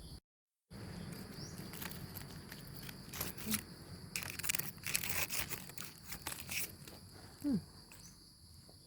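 Forest insects buzzing steadily at a high pitch, with dry leaves and twigs crackling and rustling for a few seconds in the middle as someone moves through the leaf litter or handles plants.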